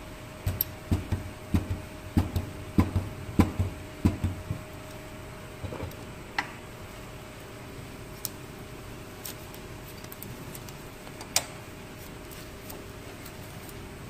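Hands handling a tape dispenser and small tools on a cutting mat: a quick, irregular run of dull knocks and taps over the first few seconds, then a few scattered single clicks, over a steady faint hum.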